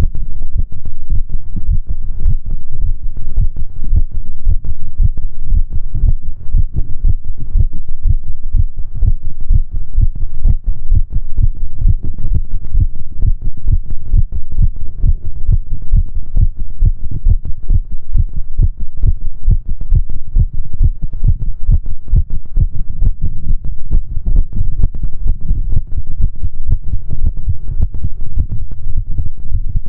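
Heartbeat sounds: a steady, unbroken rhythm of low beats.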